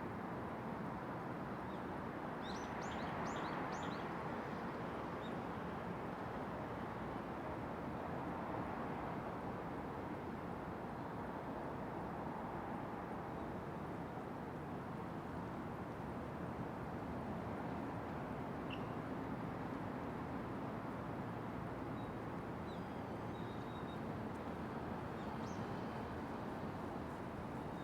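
Steady hum of distant city traffic, with a bird giving a quick run of about five high chirps a few seconds in and a few faint scattered calls later.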